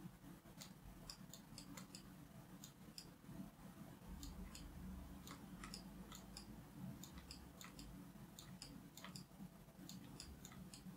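Near silence with faint, irregular clicking from a computer mouse and keyboard, a few clicks a second, over a low hum.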